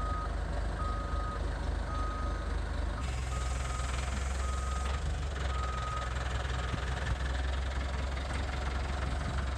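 A JCB lifting machine's diesel engine running as it carries a suspended tank engine on a chain. Its reversing alarm beeps about once a second until about six seconds in, and the engine note gets louder about three seconds in.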